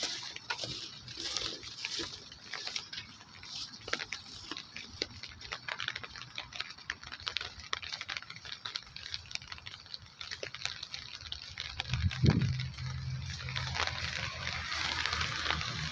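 Rain falling, with scattered drops ticking close by. Toward the end a low steady hum sets in.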